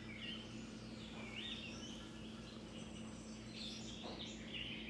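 Birds chirping faintly in the background, a scattering of short rising and falling chirps, over a steady low hum.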